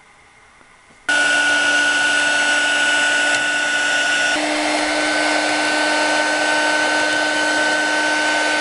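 Heat gun blowing hot air to shrink heat-shrink tubing over freshly soldered wire joints: a steady fan rush with a whine. It switches on about a second in, its tone shifts slightly partway through, and it cuts off near the end.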